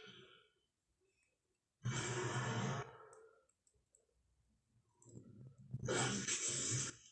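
Tyrannosaurus rex sound effect: two drawn-out rasping exhalations with a low rumble underneath. The first lasts about a second; the second builds up from about five seconds in, is the louder of the two, and cuts off sharply.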